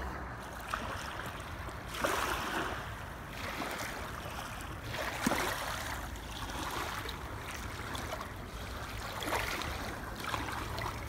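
Small waves lapping on a pebble shore, the wash swelling and falling back every second or two.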